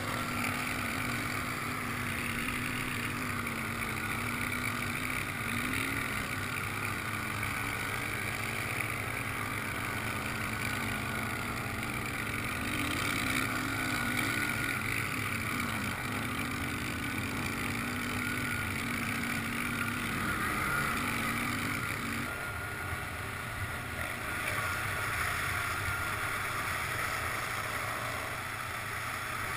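ATV engine running under throttle as the quad ploughs through shallow floodwater and mud, with water splashing around the wheels. The engine note wavers and drops away about two-thirds of the way through.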